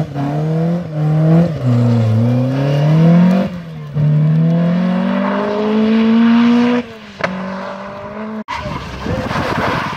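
Rally car engine revving hard as the car pulls away after a spin, climbing in pitch through several upshifts, then fading with distance. Near the end the sound cuts abruptly to a noisy rush.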